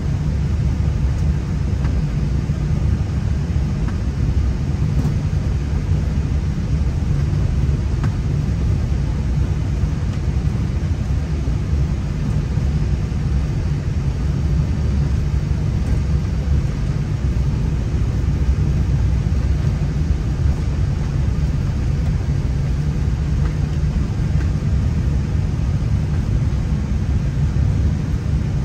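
Steady low rumble heard inside an Airbus A320 cockpit: the aircraft's engine and running noise, even throughout with no distinct events.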